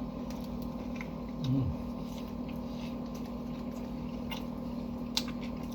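Someone chewing a mouthful of sub sandwich, with small wet mouth clicks, a short low "mm" about a second and a half in, and a sharper click near the end. A steady low hum runs underneath.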